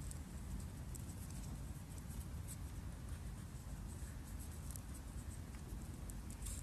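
Faint, scratchy crackling and rustling of paper pages burning and being handled, scattered irregular ticks over a steady low rumble.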